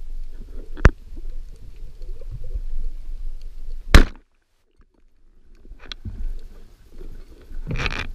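A band-powered speargun fires underwater with one sharp crack about four seconds in. The rumble of the water runs around it, with a smaller click about a second in and a louder noisy burst near the end.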